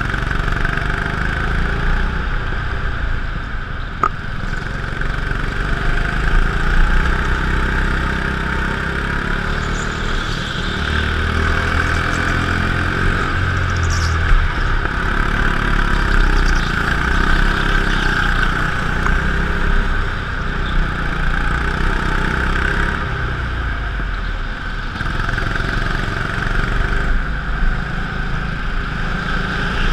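Go-kart engine running, heard on board, its pitch rising and falling with the throttle through the corners, over a steady rush of air and vibration. A couple of sharp clicks come about four and fourteen seconds in.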